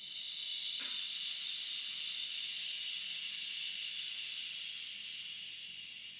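A woman's long exhale through the mouth made as a steady 'shh' hiss, starting abruptly and tapering slightly near the end: the drawn-out out-breath of a yogic breathing exercise, two to three times as long as the in-breath.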